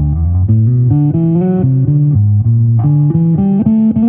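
Fender Japan electric bass played fingerstyle: a quick melodic run of single plucked notes, about four a second, stepping up and down in pitch.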